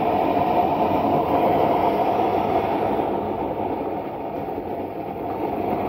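Homemade waste-oil stove running, its burner flame and blower fan making a steady rushing drone with a faint whine. The level dips a little about four seconds in, then comes back up.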